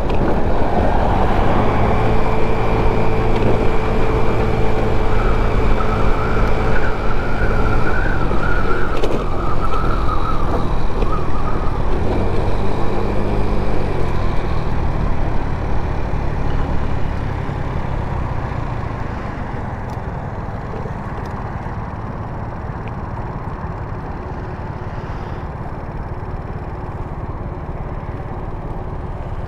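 GY6 50cc four-stroke single-cylinder scooter engine running at road speed with wind noise on the microphone. It winds down a little over halfway through as the scooter slows, then settles to a quieter steady idle while stopped.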